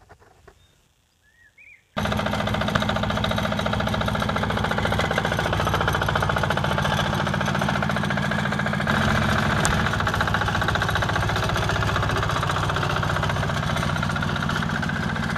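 Yanmar diesel engine of a Sears garden tractor running steadily under way, with a fast knocking beat. It comes in abruptly about two seconds in, after near quiet, and its note shifts slightly about nine seconds in.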